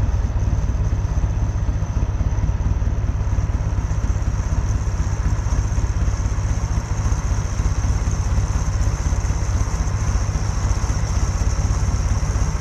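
Tractor engine running steadily with a fast, even low pulse.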